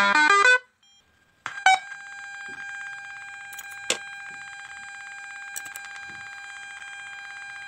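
Loudspeaker on a Bluetooth amplifier board giving a short falling run of electronic beeps, then, after a couple of clicks, a steady high-pitched electronic buzz.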